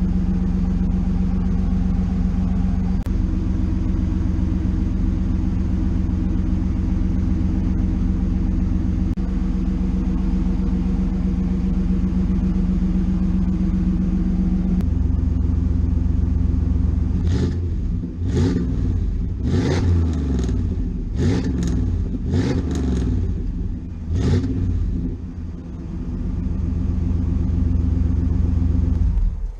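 1995 Camaro Z28's LT1 V8 through a Magnaflow cat-back exhaust, idling steadily. About halfway through it is held a little higher, then blipped about eight times in quick succession, and it settles back to idle.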